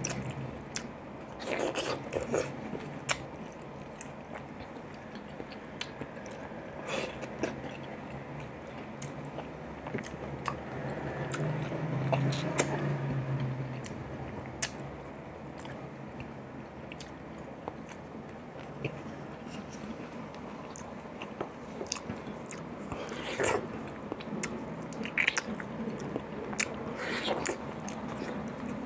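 Close-miked eating of ripe mango: wet biting and chewing of soft mango flesh pulled from the skin, with many scattered sharp mouth clicks and smacks.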